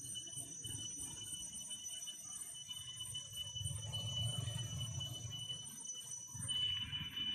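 Insects droning in a steady high-pitched chorus, with a louder buzzing band coming in near the end, over a low rumble.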